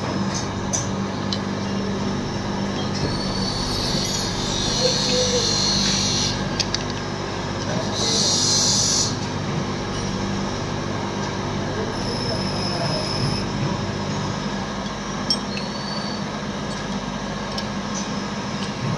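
Steady mechanical hum and rumble of running machinery, with two louder hissing bursts about four and eight seconds in and a few light metallic clicks.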